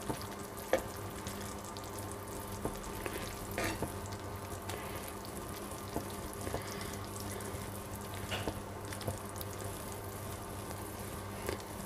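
A spoon stirring a simmering milk, grated-carrot and fox-nut pudding mixture in a pan on low heat, with a soft steady sizzle and occasional clicks of the spoon against the pan. A steady low hum runs underneath.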